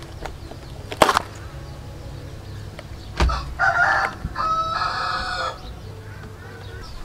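A rooster crowing from about three and a half seconds in, for roughly two seconds in two parts. Earlier there is a sharp knock about a second in, and another just after three seconds.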